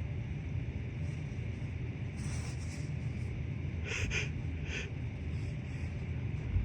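A person's breath catching in short, sharp hitching gasps as a sneeze builds: a soft breath in about two seconds in, then three quick catches around four seconds in. A steady low rumble runs underneath.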